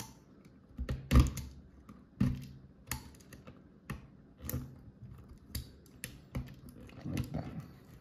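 Irregular clicks and light taps of hands working small wires into the plastic punch-down slots of an Ethernet patch panel on a tabletop, about ten in all, the loudest about a second in.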